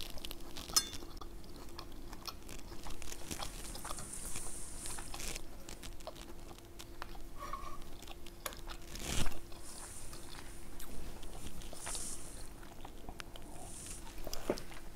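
A person chewing a forkful of pasta and pepper steak, with small wet mouth sounds and light clicks, and a sharper knock about nine seconds in. A faint steady hum lies underneath.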